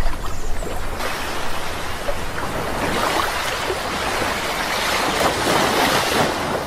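Sea waves washing on the shore, a steady rush of surf that swells to a peak about five or six seconds in and then falls away.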